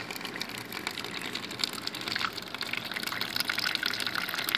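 Keurig coffee brewer dispensing a thin stream of hot liquid from its spout into a mug, a steady splashing pour that gets slightly louder partway through.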